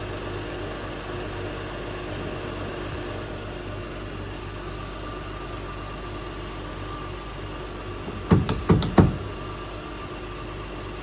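2024 Honda Pilot's V6 idling steadily, left running after a remote start that it won't shut off from. Several faint clicks of key-fob buttons, then about eight seconds in a quick run of four loud thumps as the locked door handle is yanked and snaps back: the electrical fault keeps the doors from unlocking.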